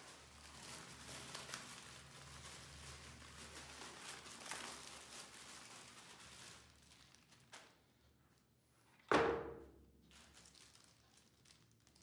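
Plastic packaging rustling and crinkling as it is handled, with one sharp knock about nine seconds in that rings briefly and is the loudest sound.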